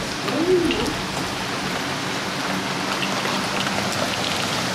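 Heavy thunderstorm rain pouring down steadily, a dense hiss with scattered drop ticks. A brief pitched sound rises and falls in the first second.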